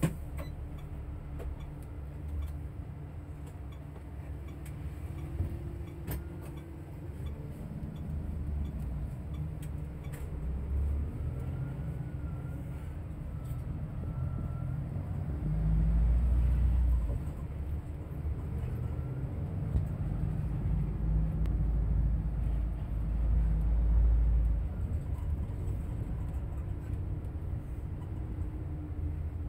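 Shuttle bus running, heard from inside the cabin: a steady low engine and road rumble that swells louder for a couple of seconds around the middle and again for several seconds later on.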